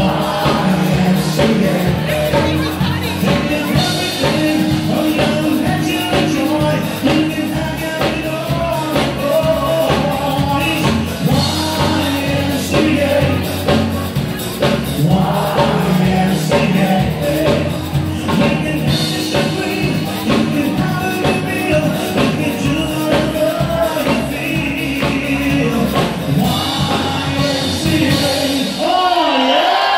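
Live band music with a singer, carried through a large hall over a dancing crowd. The music stops about a second before the end.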